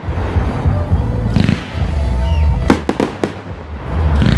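Fireworks display: aerial shells bursting in a handful of sharp cracks, over a continuous deep rumble of booms.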